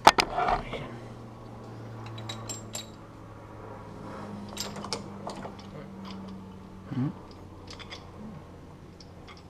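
Scattered metal clicks and clinks of a 5.7 Hemi's rocker shaft assembly being handled and worked loose from the cylinder head, with one sharp click at the very start.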